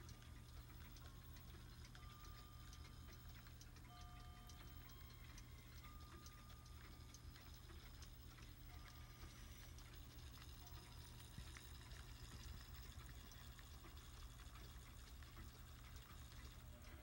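Near silence: faint room tone with a steady low hum and scattered light ticks.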